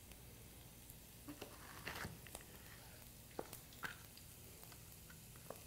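A chef's knife slicing through summer squash and tapping a plastic cutting board: about half a dozen light, irregular knocks. Under them is a faint steady sizzle of shallot cooking in oil.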